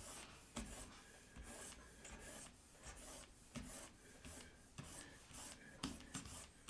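Stylus strokes on a drawing tablet: faint, quick scratchy swipes, about two a second, as long straight lines are drawn freehand.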